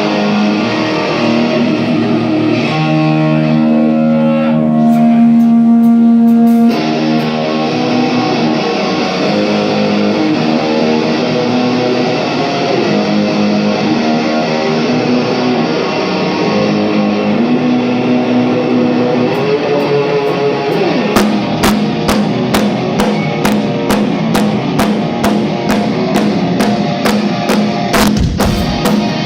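Rock band playing live on stage: electric guitar chords ringing out, with the drum kit coming in about two-thirds of the way through on a steady beat of about two hits a second.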